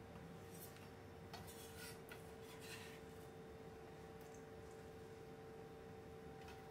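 Near silence: room tone with a steady faint hum, and a few faint, brief scratchy sounds in the first few seconds.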